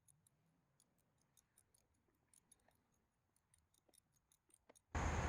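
Faint, irregular clicking of a socket ratchet tightening the battery hold-down bolt, several light clicks a second.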